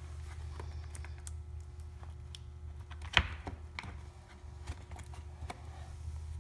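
Scattered small clicks and taps of plastic parts being handled while a cabin air filter housing is worked on, with one sharper click about three seconds in, over a steady low hum.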